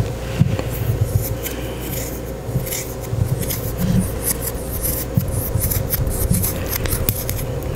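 Fingers and palms rubbing and brushing together close to the microphone: an irregular, soft swishing of skin on skin with light low thuds.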